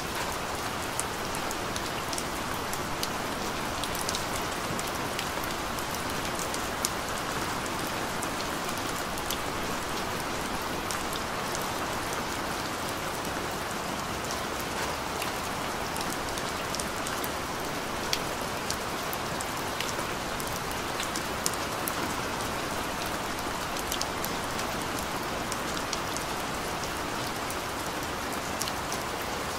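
Steady rain falling: an even hiss with many scattered, sharper drop ticks.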